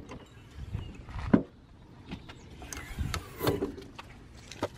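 A car's rear hatch being unlatched at its handle and opened, with a few clicks and knocks, the loudest about a second and a half in. Then bags shift and rustle in the cargo area.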